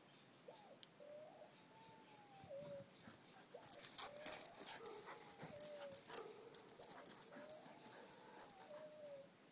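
Large dog whining in excitement: several long, thin whines that rise and fall in pitch, about every two seconds. A sharp scuffle about four seconds in, with brief clicks and rustling after it, is the loudest sound.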